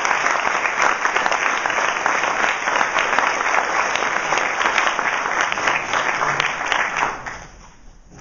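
Audience applauding, dense clapping that dies away about seven seconds in.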